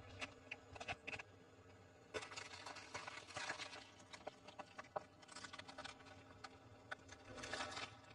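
Eggshells and a cardboard egg carton cracking and crunching under a slowly rolling car tyre, a run of irregular sharp crackles and snaps.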